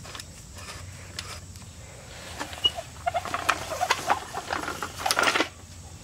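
Floor jack being pulled out from under the mower: a burst of metal rattling, clanking and squeaking starts about two seconds in and stops abruptly near the end.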